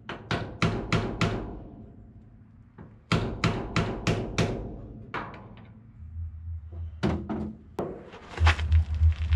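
Repeated banging on the steel cab of an FSC Żuk van, in quick runs of about four sharp strikes a second with pauses between, as a stuck part that will not unscrew is knocked at. A regular low thumping sets in near the end.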